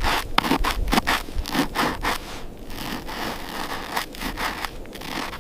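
Irregular crunching and scraping, a rapid series of sharp strokes that thin out towards the end, over a low rumble.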